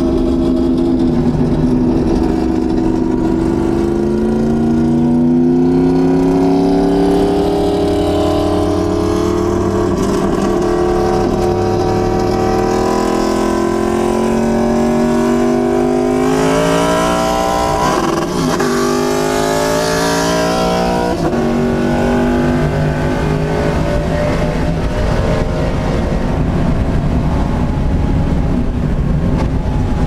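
Porsche 911 SC race car's air-cooled flat-six engine, heard from inside the cabin, running hard under full throttle. Its pitch climbs slowly through a long pull, breaks about two-thirds of the way through with a rush of high hiss, then runs steadier at a lower pitch.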